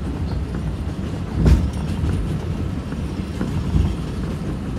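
Moving NYC subway train on the elevated 7 line, heard from aboard: a steady rumble of wheels on rail with a couple of sharper clacks over rail joints, the loudest about a second and a half in.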